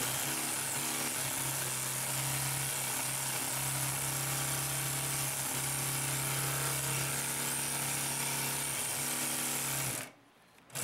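Consew P2339RB double-needle walking-foot industrial sewing machine running steadily, stitching through a thick stack of fabric layers. It stops abruptly near the end.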